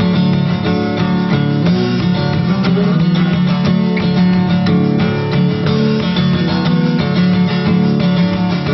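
Background music: guitar music with dense plucked and strummed notes.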